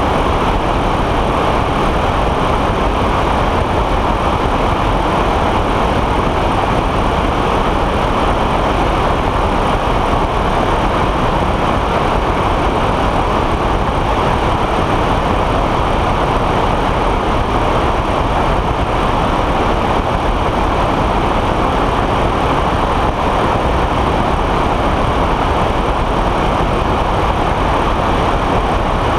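Steady wind rush and engine drone of a weight-shift microlight trike in cruise flight, picked up by a camera mounted on its wing.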